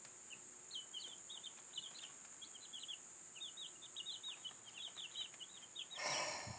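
Chicks in a brooder box peeping: a steady run of short, high, falling peeps. A brief rustle comes near the end.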